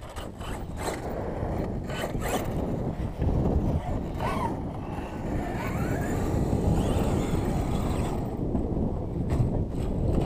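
Electric RC monster truck driving over loose gravel and sand, tyres scraping, its motor whining up in pitch once about four seconds in. A steady low wind rumble on the microphone runs underneath.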